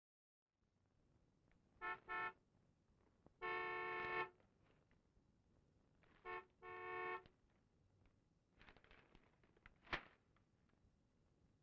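Car horn honking: two short toots and a long blast, then a short toot and another long blast. Near the end there is a single sharp tap.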